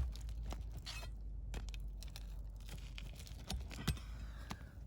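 Scattered light metallic clicks and scrapes of hand tools working nails and asphalt shingles loose, with one sharper click about four seconds in.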